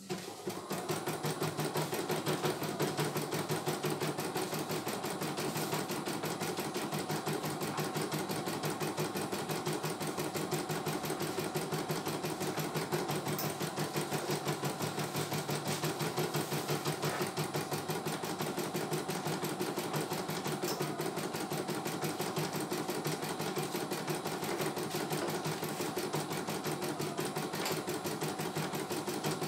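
CNY E900 computerized embroidery machine stitching a design, the needle running at a rapid, even stitch rhythm that holds steady throughout.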